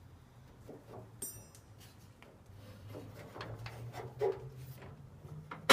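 Faint scraping and small clicks of a pickup door lock cylinder being worked into its hole in the door, with a brief high squeak about a second in. It ends in one sharp knock.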